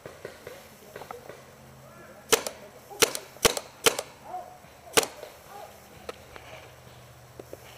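Paintball pistol firing about five sharp shots, irregularly spaced over some three seconds; the marker is a compact Tippmann TiPX-type pistol.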